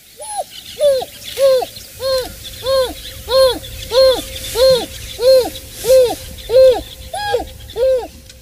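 African wild dog giving a regular series of short hooting calls, about three every two seconds, each a single note that rises and falls in pitch.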